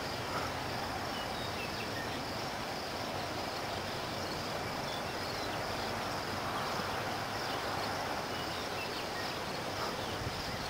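Steady rural outdoor ambience: a continuous high insect buzz over a low rumble, with a few faint short chirps.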